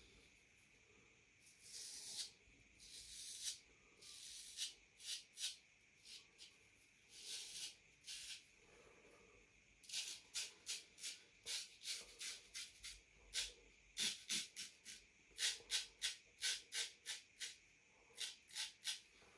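Harlex straight razor scraping through lather and stubble against the grain, in short strokes: a few slower, longer strokes at first, then quick strokes about two a second from about halfway.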